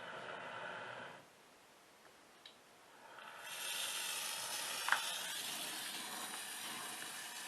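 Gas hissing: a short hiss in the first second, then a steady hiss that comes in about three seconds in and holds, with a sharp click near the five-second mark.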